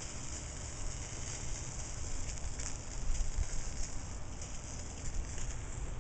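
Sausage sizzling on a charcoal grill: a steady hiss with small scattered crackles, over a low rumble.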